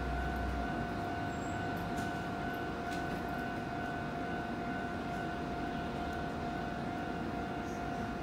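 Nankai 8300 series electric train standing at the platform, its equipment giving off a steady high-pitched whine with an overtone over a low hum. A couple of faint clicks sound partway through.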